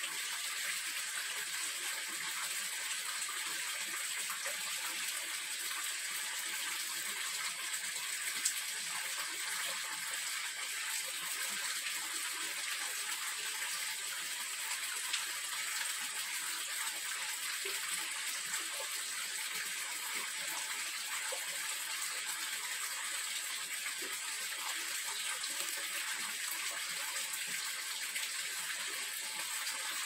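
Steady, even hiss like running water, with a couple of faint clicks.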